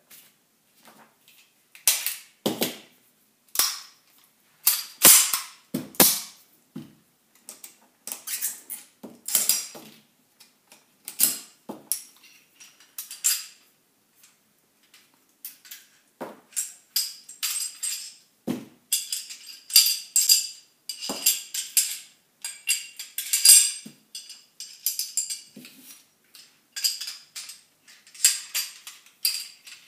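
Steel parts of a full-size Para USA 1911 pistol clicking, clacking and rattling as it is field-stripped by hand, with parts set down on the table. Loud separate clacks in the first few seconds give way to quicker, denser metallic clicking in the second half.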